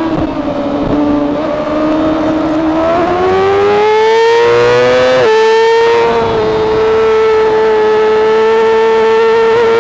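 Yamaha R6 race bike's inline-four engine at high revs under full throttle. The pitch sags early on, climbs steadily, drops sharply at an upshift about five seconds in, then holds high and nearly level, with wind rush over it.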